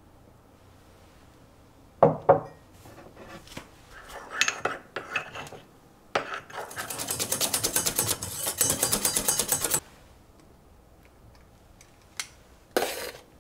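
Spoon stirring briskly in a small ceramic cup: a fast, even run of clinks against the cup lasting about three and a half seconds. Before it come a couple of loud knocks and scattered clinks of tableware, and near the end a click and a short scrape.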